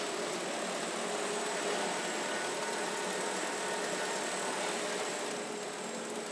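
Steady machinery noise of a car assembly line: a broad even whooshing hiss with a thin high whine over it, the hiss easing off near the end.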